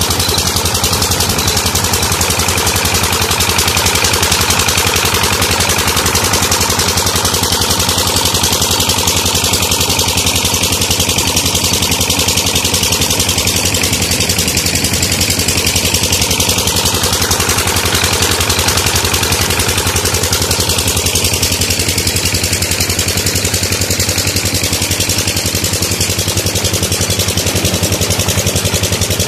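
Petter single-cylinder diesel engine running steadily with a rapid, even beat as it drives a tube-well pump, with water gushing from the outlet pipe into a concrete tank and channel.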